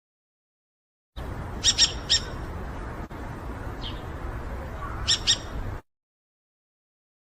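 A bird calling in short, high-pitched squawks, given in quick groups of two or three over a steady background hiss; the calls start about a second in and stop suddenly after about four and a half seconds.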